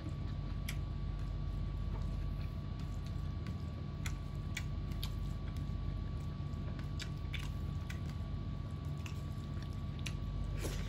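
Close-up eating sounds of a person eating rice and fried chicken by hand: chewing and soft wet squishes as fingers mix and pick up rice, with scattered small clicks. A steady low hum and a faint constant tone run underneath.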